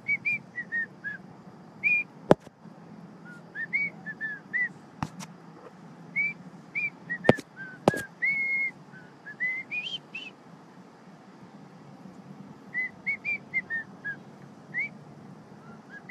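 A man whistling a wandering tune through pursed lips in short, sliding notes, in phrases with pauses between them. A few sharp clicks come about two, five, and seven to eight seconds in.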